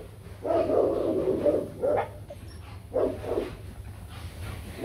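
White Bắc Hà dogs squabbling: a harsh outburst of dog noise lasting about a second, starting about half a second in, then two short barks near the two- and three-second marks.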